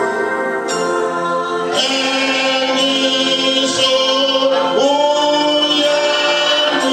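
A church congregation singing a hymn together, holding long notes.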